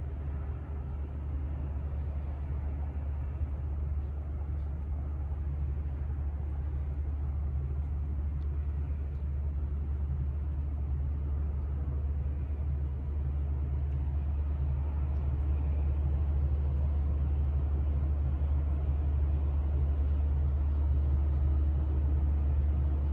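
Low, steady engine rumble of a large ship passing in fog, slowly growing louder.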